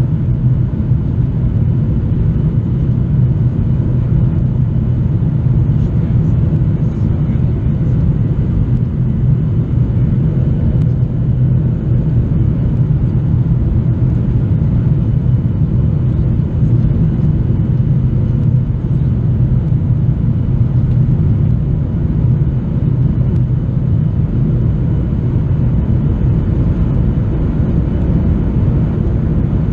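Steady cabin noise of a Boeing 737-800 on approach, heard inside the cabin over the wing: the CFM56 engines and the airflow make an even, low rumble with faint steady tones above it.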